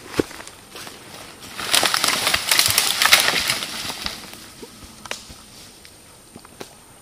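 A brush shelter of leafy branches collapsing: a crackling, rustling crash of twigs and leaves lasting about two seconds, with a few single twig snaps before and after it.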